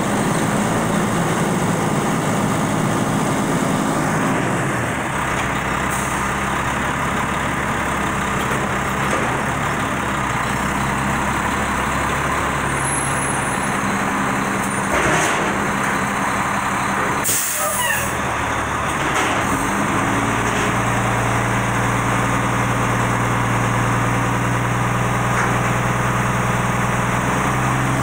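Diesel engine of a Volvo WX front-loader garbage truck running while its Labrie Optimizer hydraulics work the A-frame arms, the engine note shifting a few times. About two-thirds through comes a short, loud hiss of air brakes releasing.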